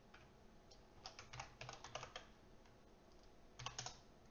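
Faint typing on a computer keyboard: a quick run of keystrokes about a second in, a pause, then a short burst near the end.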